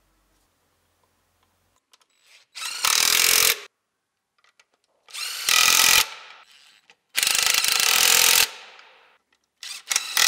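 Cordless electric ratchet running down the four bolts that hold a cast-aluminium intake manifold, in four short runs of about a second each. The first run starts about two and a half seconds in.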